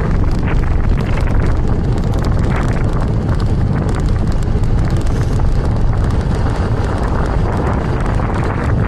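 Strong gusting wind buffeting the microphone of a moving bicycle: a loud, steady low rumble.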